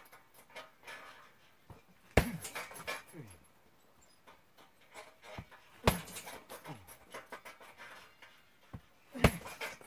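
Heavy punching bag kicked three times, about every three and a half seconds. Each kick lands as a sharp thud, followed by a brief sound falling in pitch.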